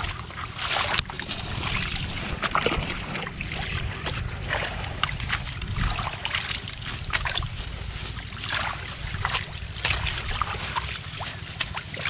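Irregular splashing and crackling as hands rummage through water hyacinth and muddy water held in a blue plastic net, over a low wind rumble on the microphone.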